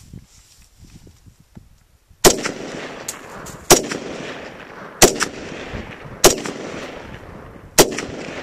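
Norinco SKS semi-automatic rifle in 7.62×39 mm firing five shots, about a second and a half apart, each trailing off in an echo.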